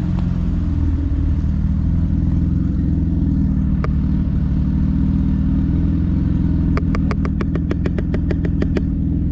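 A car engine idling steadily, with a quick run of sharp ticks, about eight a second, lasting about two seconds near the end.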